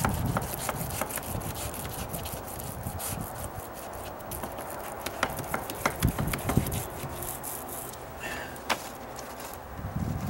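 Small paint roller rolling primer onto a wooden deck-stair riser: a steady wet rubbing with many fine crackling ticks, and a few sharper knocks about six seconds in.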